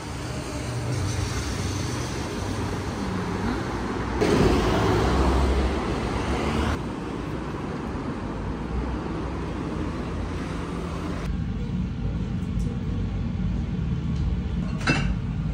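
City street traffic noise, louder for a couple of seconds about four seconds in, then giving way to a quieter, duller indoor room noise with a sharp click near the end.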